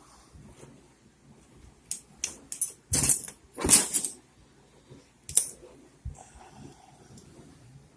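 Allen keys clinking and rattling as they are picked through and tried for fit, in a string of sharp metal clicks and clatters, thickest about two to four seconds in.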